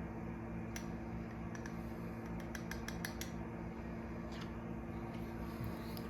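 Faint light clicks and taps from handling a small hot sauce bottle and its cap, with a quick cluster of them about two and a half to three seconds in, over a steady low hum.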